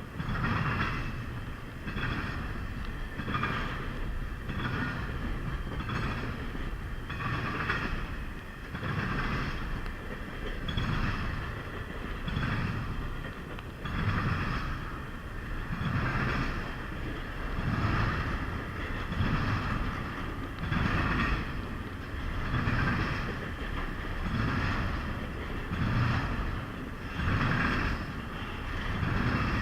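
Freight train rolling past, its cars' wheels clacking over the rail joints in a steady rhythm, a surge about every second and a half.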